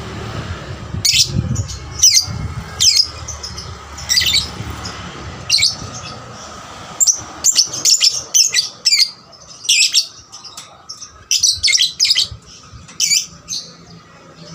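Young lovebird chirping: short, sharp, high-pitched calls repeated at irregular intervals, coming in a quicker run in the second half.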